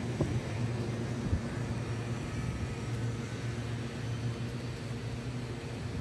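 Steady low hum and rumble of a city's background noise, with two soft thumps in the first second and a half.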